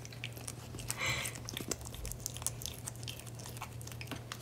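Kitten licking and lapping lickable cat-treat paste from a squeeze tube: a quick, irregular run of small wet smacking clicks, with a brief soft rustle about a second in.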